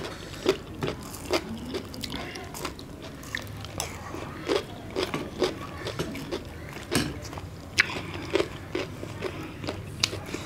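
People eating close to the microphone: biting and chewing food, including ring-shaped fried sel roti, with many short irregular clicks.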